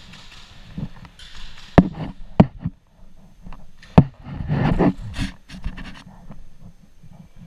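Rustling and scraping with several sharp clicks and knocks, the loudest about two and four seconds in, and a short louder rush of noise just after: the movement and handling noise of an airsoft player carrying the camera.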